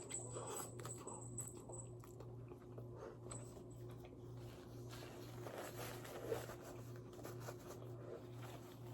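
Faint chewing and biting of food, with small clicks and crunches from the mouth, over a steady low hum.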